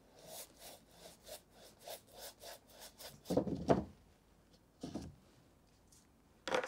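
Large paintbrush scrubbing acrylic paint onto a stretched canvas in quick, repeated strokes, about three or four a second. A louder, lower rub or bump comes a little past the middle, with shorter ones near 5 s and near the end.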